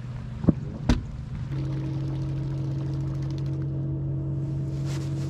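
Bass boat's motor running with a steady hum; two sharp knocks come in the first second. About a second and a half in, the hum changes to a steadier, even tone that holds.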